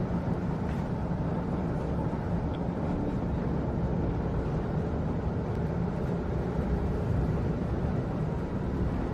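Steady low rumble of a moving train heard from inside the passenger carriage.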